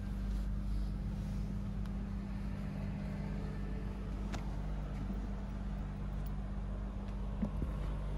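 Inside an overnight highway coach: the steady low drone of the bus's engine and running gear, with a faint click about four seconds in.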